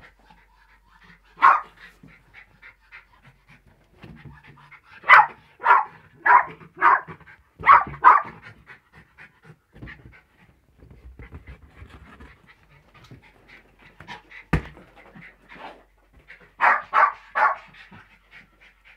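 Small Jack Russell-type dog panting rapidly in excitement while playing with a balloon, with short loud barks in bursts: one early, a run of five or six in the middle, and three near the end. A single sharp knock sounds about two-thirds of the way through.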